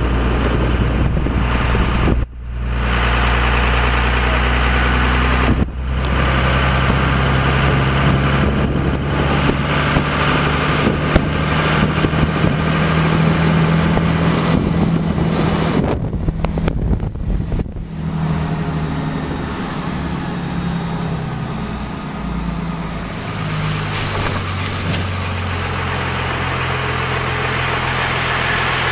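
Car engine and road noise heard from inside a slowly moving car, a steady engine hum that changes pitch a few times. The sound drops out briefly about two and six seconds in.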